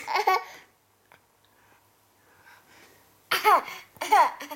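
Baby laughing while being tickled: a brief burst of giggles, then a pause of about three seconds with only faint breathing, then loud, high-pitched laughs that fall in pitch.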